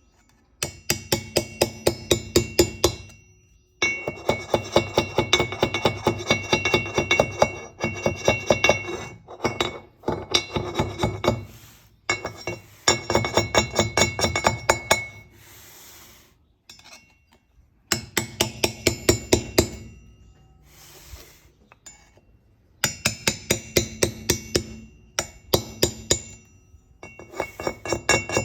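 Bursts of quick, sharp metal-on-metal taps, about five a second with short pauses between, each with a bright ring. A screwdriver is being worked against the steel locking tabs to bend them up against the sprocket bolt heads, which locks the bolts.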